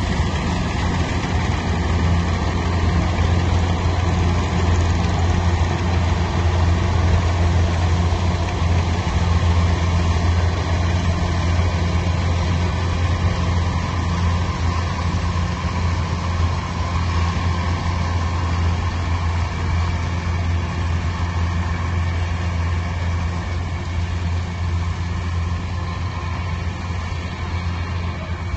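Machine engine running steadily with a deep, even hum and no changes in speed.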